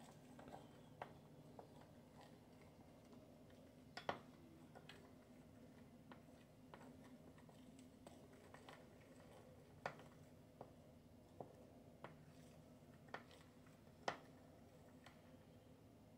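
Metal spoon clicking against a ceramic bowl as pancake batter is stirred: scattered light ticks, with louder knocks about four, ten and fourteen seconds in, over a faint steady hum.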